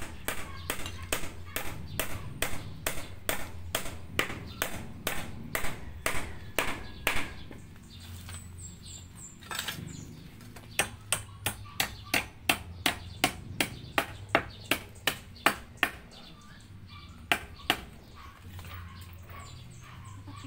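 Hammer nailing a wooden post-and-rail frame: sharp blows about two a second, in three runs with pauses of a few seconds between them.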